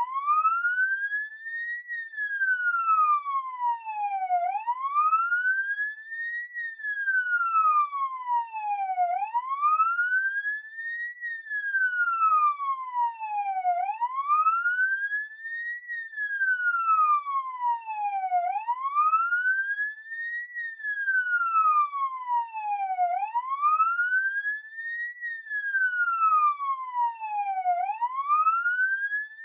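Emergency-vehicle siren in wail mode: a single tone that rises quickly and falls back more slowly, one sweep about every four and a half seconds, with no other sound behind it.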